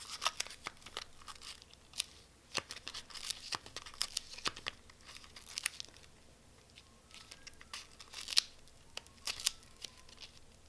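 Plastic sleeves of a mini photocard binder crinkling and rustling as pages are turned and cards handled, in short irregular rustles with small clicks and taps.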